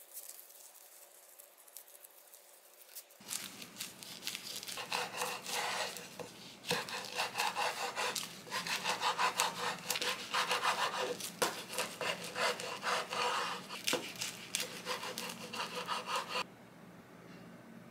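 Kitchen knife slicing a nori-wrapped gimbap roll on a wooden cutting board, quick back-and-forth sawing strokes slice after slice, with a few sharper knocks of the blade on the board. It starts about three seconds in and stops shortly before the end.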